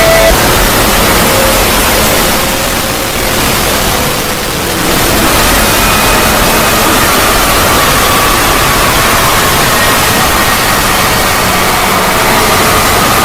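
Electronic 'void' sound effect: a loud, dense wash of hiss-like noise with faint high tones drifting slowly in pitch, dipping briefly in loudness about three to four seconds in.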